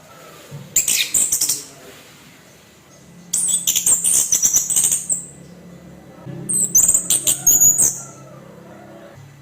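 Orange-headed thrush singing its harsh, rough 'kasaran' song in three bursts of rapid, high-pitched notes, with short pauses between them. A faint low hum runs underneath.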